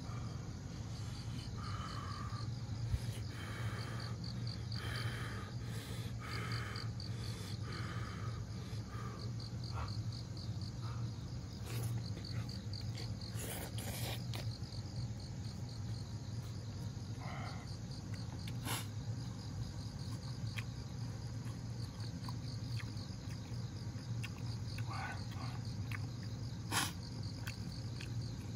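Crickets chirping in a fast, even pulse that never lets up, over a steady low hum. A few short, sharp clicks stand out now and then.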